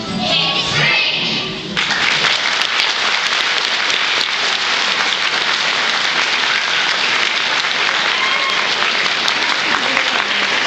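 Audience applauding, breaking out suddenly about two seconds in as a song ends and then going on steadily.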